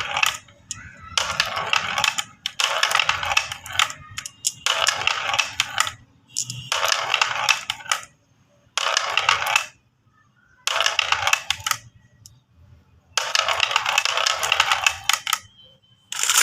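Marbles clattering down a marble-run track in repeated runs. There are about seven bursts of rapid clicking, each a second or two long, with short pauses between them.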